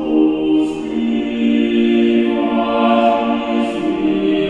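Renaissance choral group singing unaccompanied, holding slow sustained chords that shift to a new chord every second or so, with a few soft hisses of breath or sibilants.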